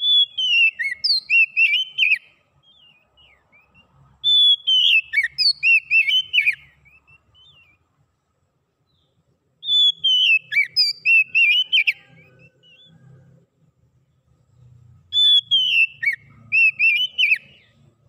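Oriental magpie-robin (kacer) singing four near-identical phrases a few seconds apart. Each phrase opens with a clear whistle falling in pitch and runs into a quick string of warbled notes.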